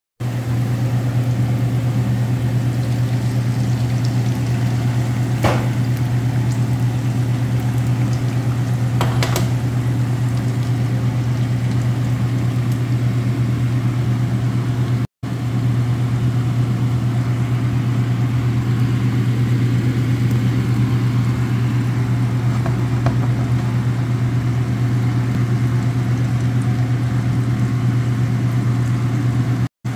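Steady low hum from a kitchen appliance, with a faint sizzle of egg and onion frying in a nonstick pan. Two short clicks come about five and nine seconds in, and the sound cuts out for a moment about halfway.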